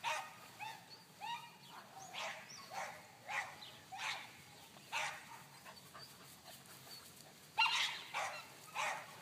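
A puppy giving short barks and yips over and over at irregular intervals, with the loudest cluster about seven and a half seconds in.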